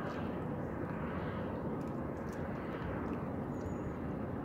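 Steady outdoor wind noise buffeting the microphone: an even rushing with no pitch, heavy in the low and middle range, with a few faint clicks.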